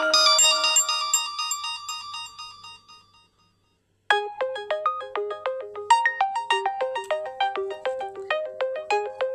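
realme Note 60 ringtones: one melody fades out over the first three seconds, and after a brief silence another ringtone starts about four seconds in, a quick repeating figure of bright notes at about four to five notes a second.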